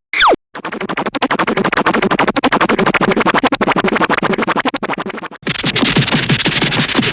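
Cartoon sound effects: a brief sweeping tone, then a fast clatter of clicks lasting about five seconds. It switches abruptly into a rapid run of short falling zips.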